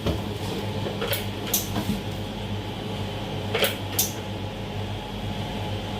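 Variofill ice cream filling machine humming steadily, with a few short, sharp clicks and hisses from its pneumatic valve and nozzle as it is operated. The machine is responding with a delay, which the technician puts down to the pneumatic control valve not working properly.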